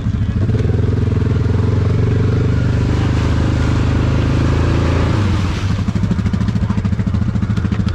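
Yamaha Grizzly 700 ATV's single-cylinder engine running steadily under throttle through mud, with splashing noise over it. The revs drop about five seconds in to a lower, pulsing throb.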